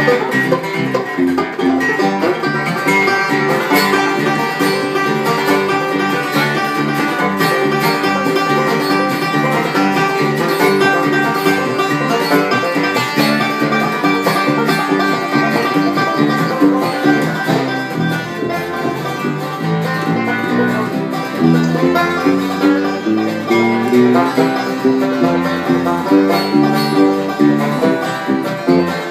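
A bluegrass band playing an instrumental passage at a quick, steady tempo: fast plucked banjo and guitar notes over a regular pulsing bass line.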